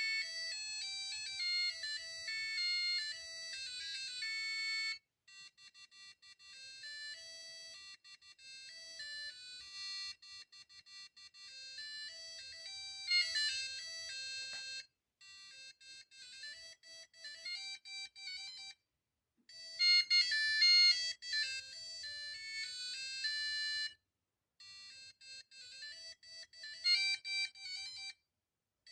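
Digital alarm clock playing its built-in electronic alarm melodies through its small speaker. The tunes are high and thin and change from one tune to the next several times, with a short pause between each as the alarm sound is switched.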